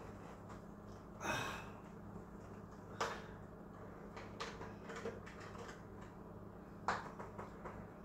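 Small handling sounds as a plastic cooking-oil bottle is opened: a short rustle about a second in, two sharp clicks about three and seven seconds in, and scattered light taps, over a faint steady low hum.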